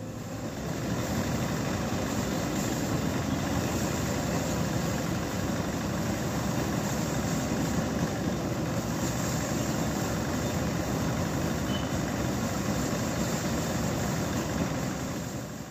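Engine-driven paddy thresher running steadily, its small engine driving the threshing drum as bundles of rice stalks are fed in.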